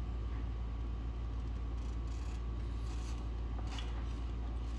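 Steady low hum of workshop background, with a few faint light clicks of parts being handled a little before the end.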